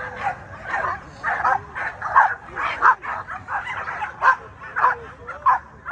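Many American Pit Bull Terriers barking and yipping together, short sharp barks overlapping in a quick, irregular run of several a second.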